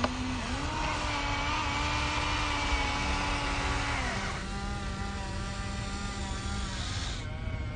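Geared electric motors of a Huina radio-controlled construction model whining steadily. Their pitch steps up about half a second in and drops around four seconds in as the controls change.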